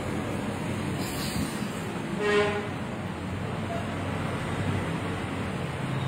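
A vehicle horn gives one short toot about two seconds in, over a steady background noise.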